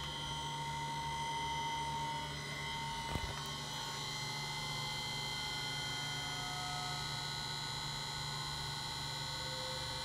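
Electric test motor driven by a Danfoss VLT HVAC variable-frequency drive, running with a steady low hum and several high whining tones from the drive's switching. A single knock about three seconds in.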